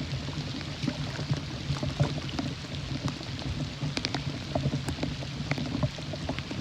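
Rain falling, heard as a steady hiss full of many small, irregular drop ticks over a steady low rumble.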